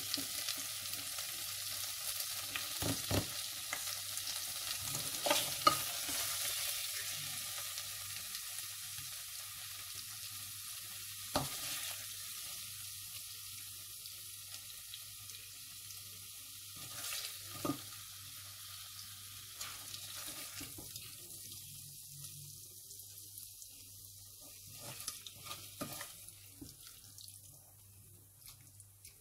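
Bitter gourd and onions sizzling in oil in a steel pot, the hiss dying away gradually. A wooden spatula knocks and scrapes against the pot a few times as the food is served out.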